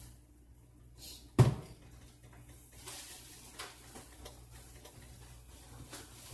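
A door shutting with one loud thump about a second and a half in, followed by a few light knocks and clicks.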